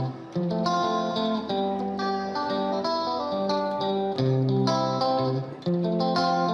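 Background music: a plucked guitar tune playing notes that change every half second or so.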